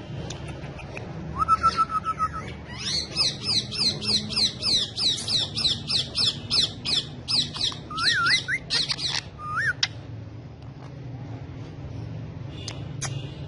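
Indian ringneck parakeet calling: a short held note, then a fast run of repeated high chirping squawks, about three a second, that stops about ten seconds in.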